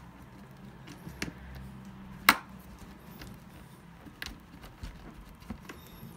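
Handling noise as a leather briefcase is wiped with a cloth: soft rubbing with a few sharp knocks, the loudest about two seconds in.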